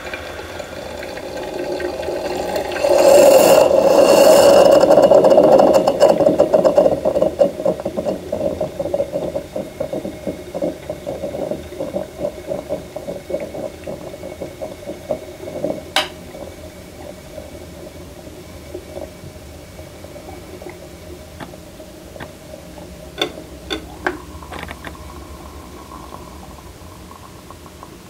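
Electric moka pot gurgling and sputtering as the last of the coffee is forced up into the top chamber. It swells to a loud rough burble a few seconds in, then breaks into irregular pops and crackles that die away to a faint hiss, the sign that the brew is finishing. There is one sharp click midway and a few lighter clicks later.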